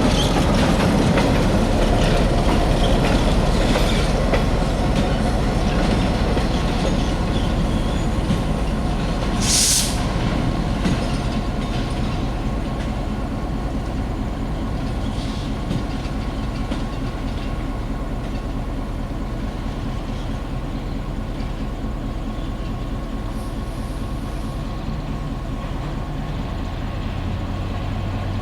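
EMD GP9 diesel-electric locomotive, with its 16-cylinder 567 engine, running while switching freight cars, the cars rolling on the rails with clickety-clack, gradually getting quieter. A brief hiss about ten seconds in.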